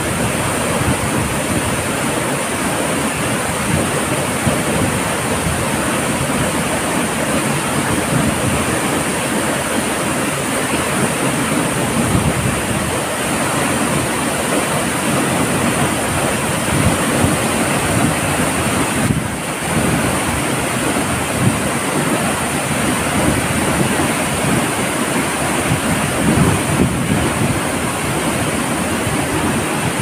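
Waterfall pouring heavily onto rocks close by, a loud, steady rush of water, with wind and spray buffeting the microphone.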